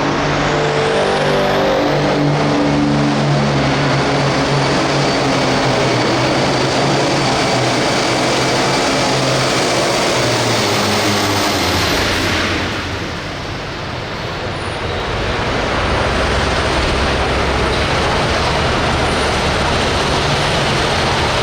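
Hot farm pulling tractor's turbocharged diesel engine running loud at full throttle during a pull, its pitch stepping in the first several seconds, with a brief drop in level about thirteen seconds in.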